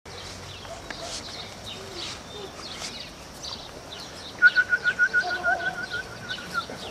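Birds chirping in short, high notes, with an even run of about a dozen quick calls at one pitch lasting about two seconds, starting a little past the middle.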